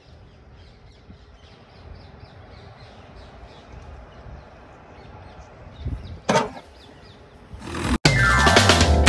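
Faint outdoor background noise with faint high chirps, then a brief loud noise about six seconds in. Loud background music with a repeating beat starts suddenly about eight seconds in.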